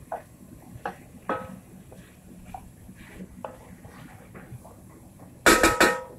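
Wooden spoon stirring food in an enameled cast-iron pot, with light scrapes and knocks against the pot's side. Near the end come several loud, sharp knocks of the spoon against the pot in quick succession, each ringing briefly.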